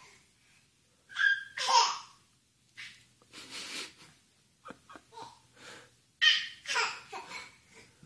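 A baby laughing in several short bursts, the loudest about two seconds in and again about six seconds in.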